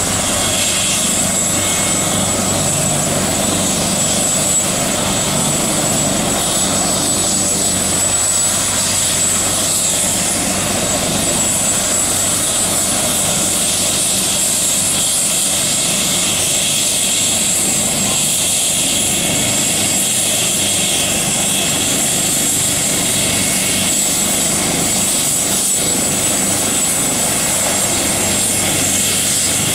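AgustaWestland AW139 helicopter running on the ground with its rotors turning. Its twin Pratt & Whitney PT6C-67C turboshaft engines give a steady high turbine whine over the rotor and exhaust noise.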